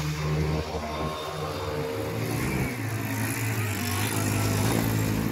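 Motorcycle engine running steadily while the bike is driven and pushed through a shallow river, with water splashing around it; the engine note drops about two seconds in.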